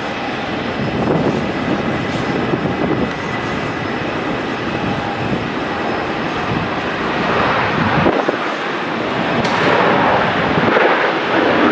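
Boeing 737 BBJ's twin CFM56-7 turbofan engines at takeoff thrust during the takeoff roll and lift-off: a steady rumble with a faint high whine, growing louder over the last few seconds as the jet rotates.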